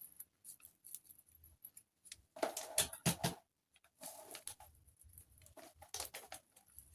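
Small kitchen-utensil scrapes and clicks as a teaspoon measure of nutmeg is scooped and levelled, coming in short clusters with the loudest a little past two seconds in.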